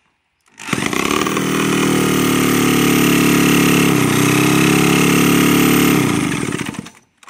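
Cordless drill spinning a stripped scooter's engine over through a socket on the crankshaft nut, with no exhaust fitted, running at a steady speed for about six seconds with a brief dip about four seconds in, then stopping. The engine has no fuel and does not fire.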